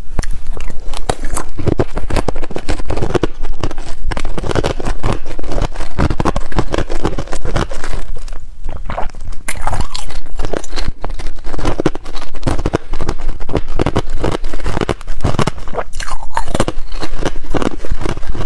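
Thin clear ice being bitten and chewed, close-miked: hard ice cracking and crunching between the teeth in quick, irregular clicks, with continuous chewing.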